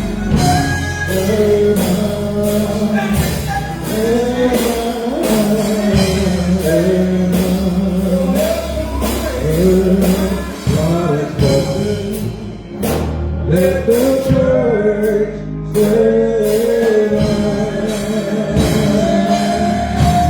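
Gospel song: a voice singing over a band with bass and a steady drum beat.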